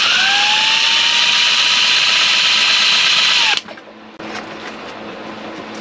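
Power drill with a nut-driver bit tightening the screw of a stainless steel worm-drive hose clamp on flexible ducting. Its motor whine rises as it spins up, holds steady for about three and a half seconds, then stops suddenly, followed by softer noise with a few clicks.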